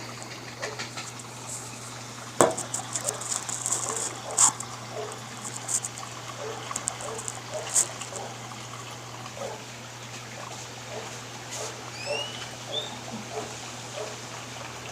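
Water sloshing and trickling inside a Whirlpool 15 kg washing machine over a steady low hum, with two sharp knocks a few seconds in. Brief rising chirps come near the end.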